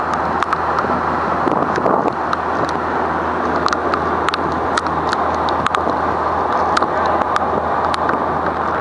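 Rigid inflatable boat under way: a steady engine drone mixed with rushing water and wind on the microphone, with scattered sharp ticks.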